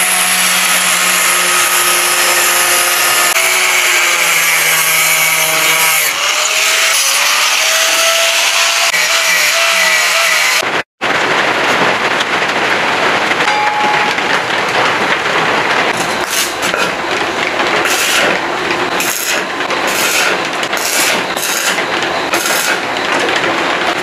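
Angle grinder cutting sheet steel: a steady motor whine whose pitch dips and rises as the disc loads, for about the first eleven seconds. After a sudden break comes a rougher noise of cut steel plates being handled on a wooden bench, with sharp knocks in the second half.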